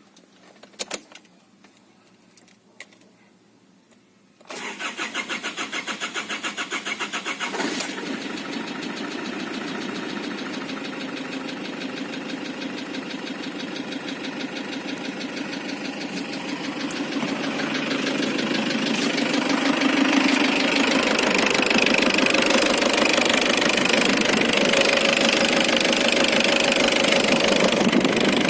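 A couple of clicks, then an Isuzu Trooper diesel engine starts about four and a half seconds in and settles into a steady, evenly pulsing run that grows louder past the halfway point. The owner suspects the knock in it comes from the valves or the engine.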